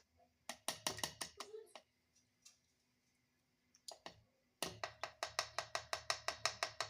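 Quick, sharp clicking strikes of a kitchen utensil against a container. A short burst of about a dozen comes first, then a pause, then an even run of about seven strikes a second that continues past the end.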